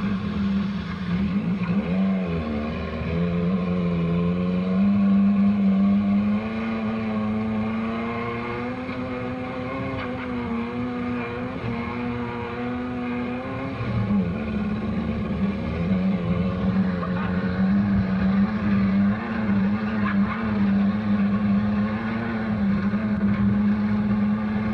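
Dune buggy engine running hard over rough ground, heard from on board. Its pitch dips about two seconds in, climbs gradually, then drops sharply about halfway through and holds fairly steady after that.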